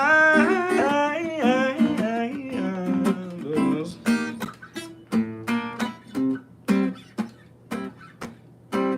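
A man singing a long, wavering note with no words over a strummed guitar. After about four seconds the voice stops and the guitar goes on alone in short, choppy strummed chords as the song ends.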